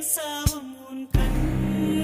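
Background music with singing and a beat; the music thins briefly and comes back fuller with drums just after a second in.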